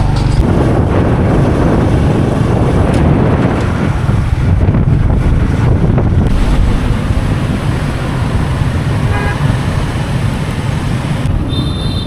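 Wind rushing over the microphone with road traffic noise while moving through city traffic. A short horn toot comes about nine seconds in.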